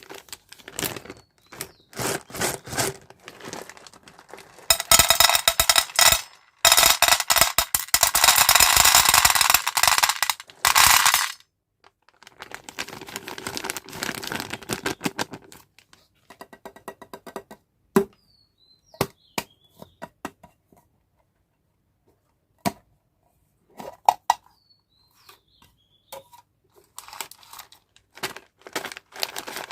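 Candy packaging being handled: plastic wrappers crinkling and tearing in loud bursts, then scattered sharp clicks and taps of small hard candies, and crinkling again near the end.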